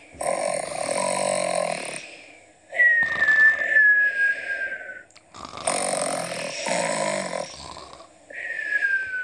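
Cartoon-style snoring: a rasping snore twice, each followed by a high whistle that slides down in pitch, the second whistle starting near the end.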